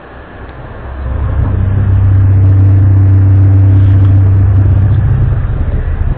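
A loud, low, steady droning hum with a few pitched tones stacked above it, of the kind passed around as the worldwide 'strange sounds' recordings. It swells in over about a second and a half, holds, and cuts off abruptly at the end.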